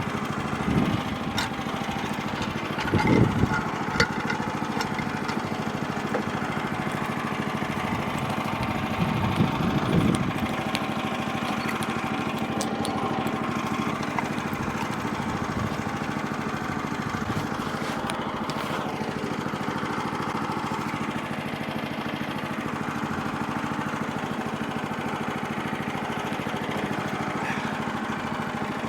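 Small gasoline engine of a portable band sawmill running steadily, swelling a little louder twice early on.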